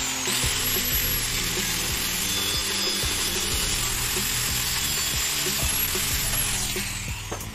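Angle grinder with an abrasive cut-off disc spinning up and cutting through galvanized steel held in a vise: a loud, steady grinding hiss over a high motor whine. Near the end the whine slides down as the disc spins down.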